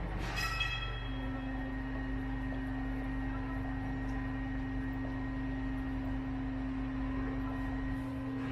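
Steady hum of a fire engine's turntable ladder appliance running to drive the raised ladder, with a constant tone over a low rumble. A short high squeal comes right at the start.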